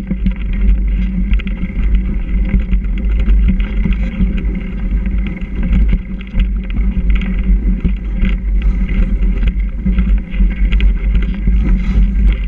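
Mountain bike riding along a rough snowy trail: steady wind rumble on the microphone with rolling noise and frequent small knocks and rattles from the bike over the bumps.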